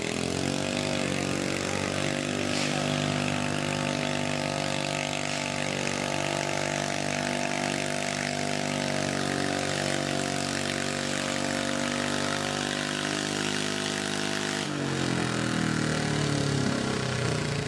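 Modified garden tractor engine running under load while pulling a weight-transfer sled. It revs up in the first second, holds high, steady revs, and the revs drop about fifteen seconds in.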